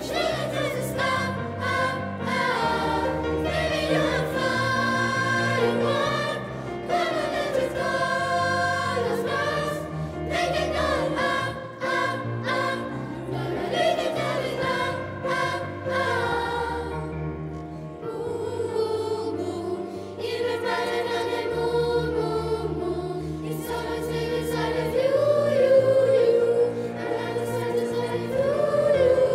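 Children's school choir singing a pop song arrangement in parts, accompanied by piano.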